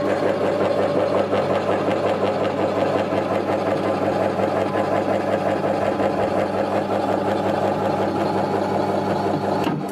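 Tanico TYK-20 tabletop vegetable slicer running: its electric motor hums steadily under a fast mechanical rattle from the spinning drive, then the machine cuts off near the end.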